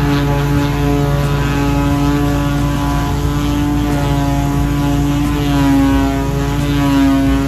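Electric power tool motor running steadily with a humming whine, its pitch wavering slightly in the second half.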